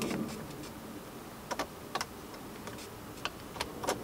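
A few scattered light clicks and taps as a hand handles the iDrive controller knob on the BMW's centre console.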